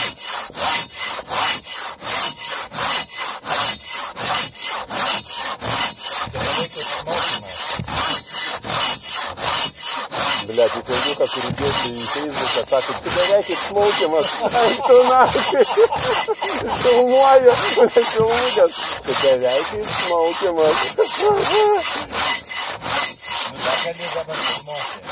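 A long-bladed hand saw cutting into a tree trunk near its base, in quick, even back-and-forth strokes about three a second.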